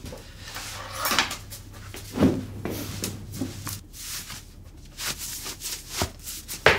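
Green rubber wellington boots being pulled on, with rubbing and short knocks of rubber and feet, and one sharp knock near the end, the loudest sound.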